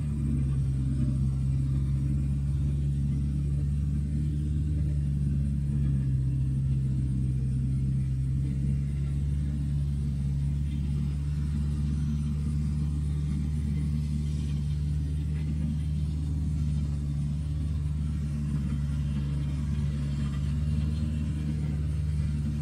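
Diesel engine of a John Deere tracked forestry machine running with a steady low drone while the machine swings its boom and works a log.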